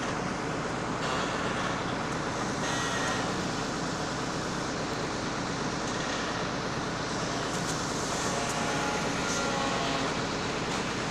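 Engine of an EIK amphibious excavator running steadily.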